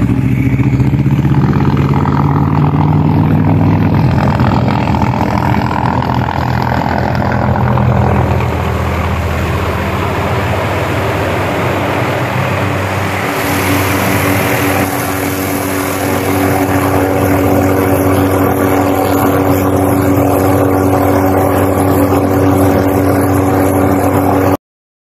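Helicopter running close by as it comes in to land: a loud, steady engine and rotor sound. About thirteen seconds in it settles into a steadier, more even tone, and it cuts off abruptly near the end.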